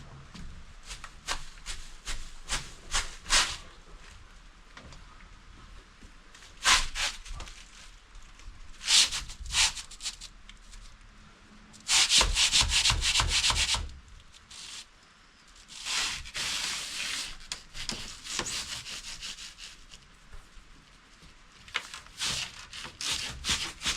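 Old wooden door frame being worked loose and pulled out, wood scraping and rubbing against its surround in irregular strokes, with a loud continuous scrape for about two seconds midway.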